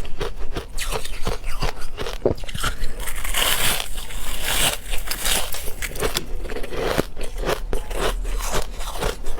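Ice being bitten and chewed close to the microphone: a rapid run of sharp crunches and crackles, several a second, with a denser stretch of crackling about halfway through.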